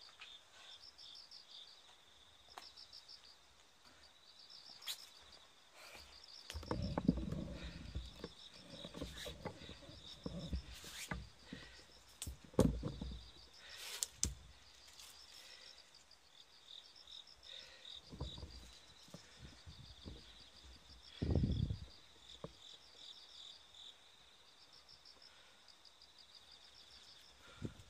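Crickets chirping in short repeated trills over a steady high insect drone, with rustling and several low thumps, the loudest about a third of the way in and again past the halfway mark.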